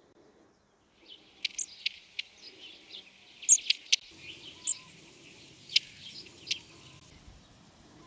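Small birds chirping: scattered short, high calls and ticks, starting about a second in, over faint field ambience.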